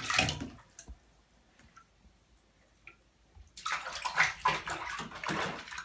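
Bathwater splashing and sloshing as hands work brass French horn slides and a vinyl cleaning snake in a soapy tub. A short splash comes at the start, then a longer spell of sloshing from about three and a half seconds in.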